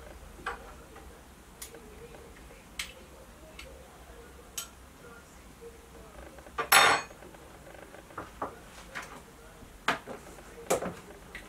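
A metal ice cream scoop knocking and scraping in a plastic tub of hard-frozen ice cream, with scattered sharp clicks and one louder clatter about seven seconds in. Near the end come several clicks as hands press the tub's snap-on plastic lid shut.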